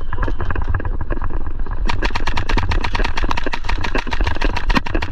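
Airsoft electric gun firing on full auto: a rapid, steady rattle of shots over the gearbox motor's buzz, getting sharper and louder about two seconds in.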